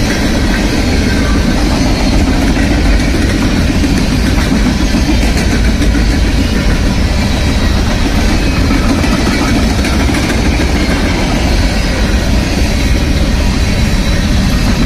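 Freight train of open-top hopper cars rolling past: a loud, steady rumble of steel wheels on the rails.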